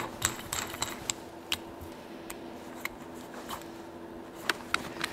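Bolts and washers being sorted out of their packaging at a workbench: scattered sharp clicks and small knocks, irregularly spaced, over a faint steady hum.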